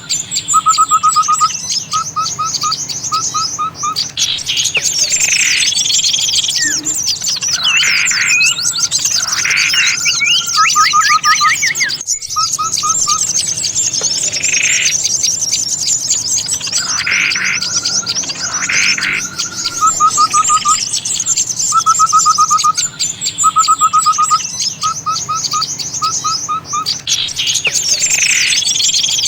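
Bird-lure recording: a dense chorus of many small songbirds calling at once, with constant high chattering, rapid repeated trills and whistled phrases. There is a brief break about twelve seconds in, after which the looped mix starts over.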